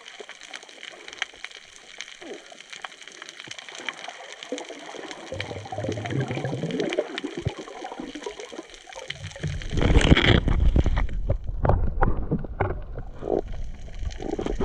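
Water sounds heard by a spearfisher's camera: faint crackling and small clicks, then a sudden loud rush of water and sloshing about ten seconds in.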